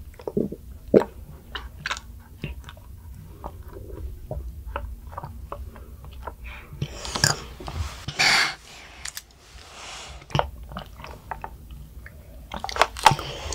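A child sucking konjac bubble tea up a wide straw: wet slurps and small clicks, with a longer, louder slurp about seven to eight seconds in and a flurry of sharp clicks near the end.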